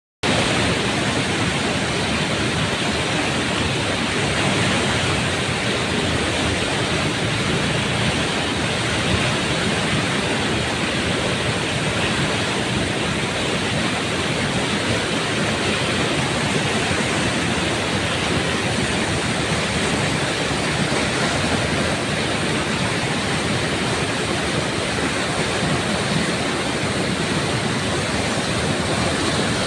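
Floodwater rushing past in a steady, loud, unbroken roar of fast-flowing water.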